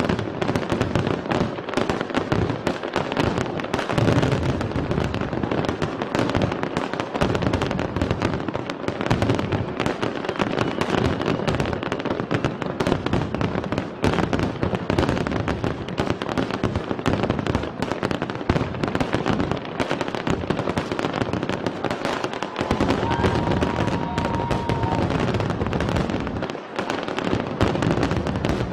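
Aerial fireworks shells bursting in rapid, overlapping succession: a continuous barrage of booms and crackles.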